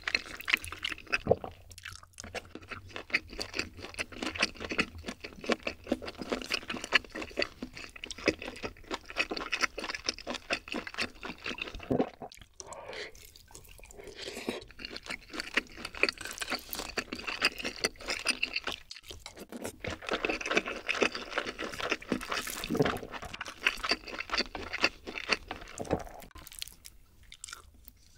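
Close-miked chewing and mouth sounds of a person eating soy sauce egg rice and grilled pork belly, a dense run of small clicks with a couple of brief pauses, quieter near the end.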